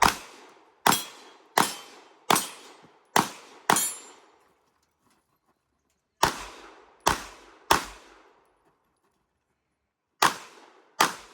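Pistol shots fired in quick strings during an action-pistol stage: six shots at a fairly even pace, a pause of about two seconds, three more, a longer pause, then two near the end. Each shot is sharp with a brief echoing tail.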